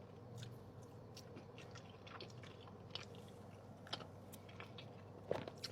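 A person chewing a mouthful of bacon cheese fries close to the microphone: faint, soft, wet mouth clicks and smacks scattered through, a few a little louder towards the end.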